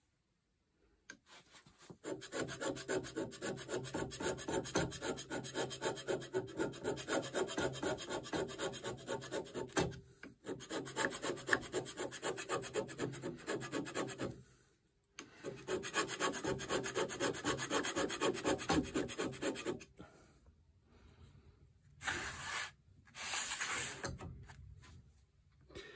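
Hand scraper cutting the toolpost seat on a Holbrook lathe's cast-iron topslide: three spells of quick, rhythmic scraping strokes with short pauses between them, a roughing pass to bring the surface within a thou. Near the end, two short rubbing sounds as the topslide is shifted on the wooden bench.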